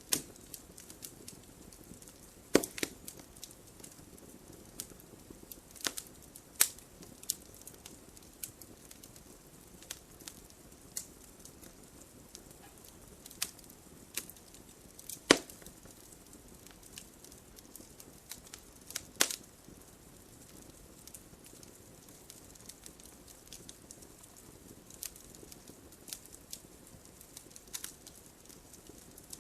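Wood fire crackling: a low steady hiss with scattered sharp snaps and pops, a few of them much louder, about 2.5, 15 and 19 seconds in.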